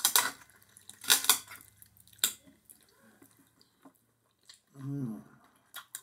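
Close-up eating sounds from gnawing meat off a pork bone: a few sharp mouth smacks and clicks, including a quick pair about a second in. A short hummed "mm" comes about five seconds in.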